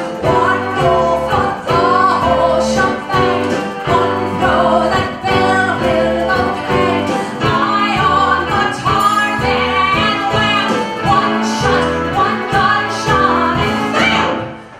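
Live cabaret music: a woman singing over instrumental accompaniment, the number cutting off sharply near the end.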